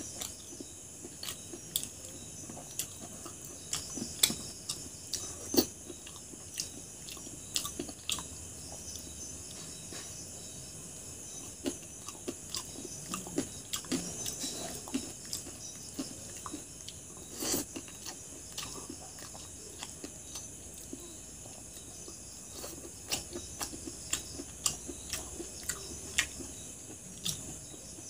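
Close-up chewing and wet mouth smacks of someone eating rice and chicken curry by hand, a string of short sharp clicks scattered throughout. Crickets trill steadily in the background.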